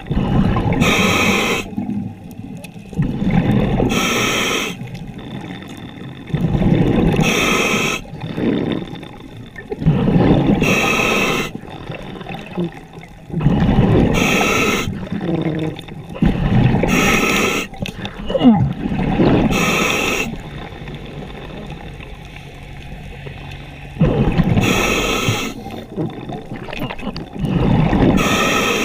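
Underwater scuba breathing through a regulator: a short hissing inhale through the second stage, then a longer burble of exhaled bubbles. About nine breath cycles, every three to four seconds, with a longer pause about two-thirds of the way through.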